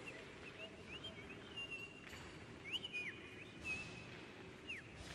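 High whistling in a string of short notes, some sliding up and some held steady, with sharp downward slides about three seconds in and again near the end, over faint low background noise.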